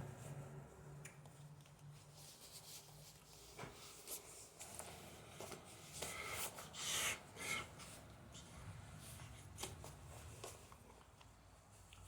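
Faint rustling and light clicks of hands handling parts and tools during repair work, with a louder stretch of rustling about six seconds in.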